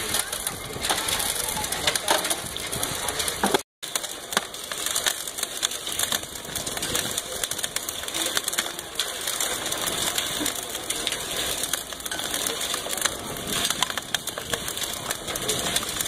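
Motor-driven rotary sand sieving machine running, with sand and gravel rattling and clattering in its turning mesh drum. The sound cuts out for a moment about four seconds in.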